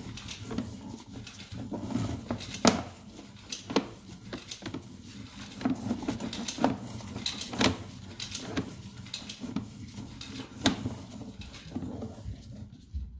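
Sewer inspection camera on its push rod knocking and scraping in the drain pipe: a string of sharp knocks, about one a second, over a low rumble.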